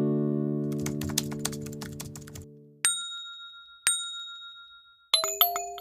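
Outro music: a strummed acoustic guitar chord rings out and fades. Then come two bright bell-like dings about a second apart, and near the end a quick flurry of chime notes that keep ringing.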